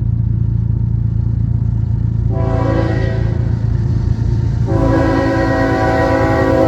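Diesel freight locomotive's air horn sounding twice, the second blast longer, over the steady low rumble of the locomotives' diesel engines.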